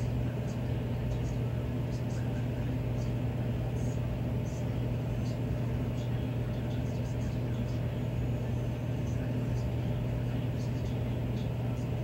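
Miller E2 furnace running in cooling mode: a steady low hum with no change in level, overlaid by faint, irregular light ticks.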